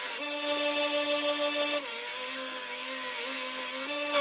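Belt grinder running with a forged steel knife blade held against the belt, grinding off forge scale: a steady motor hum under a bright grinding hiss. The hum dips in pitch and wavers about two seconds in.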